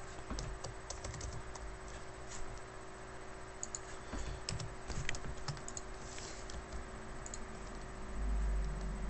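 Computer keyboard typing: scattered, irregular keystrokes and clicks, with a low rumble near the end.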